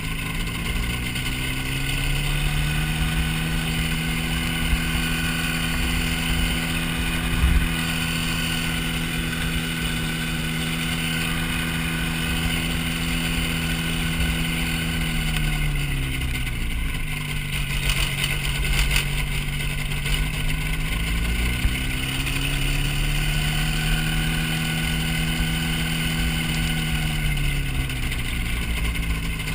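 Hy-Tek Hurricane ultralight airplane's engine and propeller running. The pitch climbs about a second in, holds steady, drops about halfway through, climbs again a few seconds later and falls back near the end, as the throttle is opened and eased in flight.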